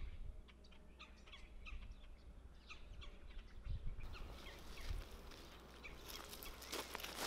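Faint birds chirping: many short, falling chirps overlapping one another, over a low steady rumble, with a few brief scratchy noises near the end.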